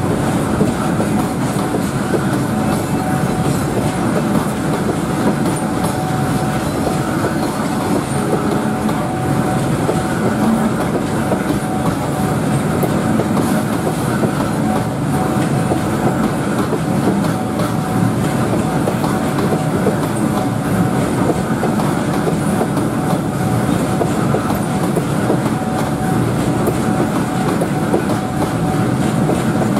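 Container freight train's loaded wagons rolling past at a steady speed: a continuous heavy rumble of steel wheels on rail, with rapid clicking of wheels over rail joints and a faint thin whine under it.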